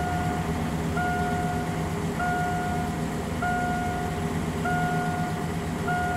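Evenly spaced electronic beeps, about one a second, each in step with a flash of the check engine light as the Ford EEC-IV self-test counts out the 9 of trouble code 94, an air-injection code. Underneath, the 5.0 V8 idles steadily.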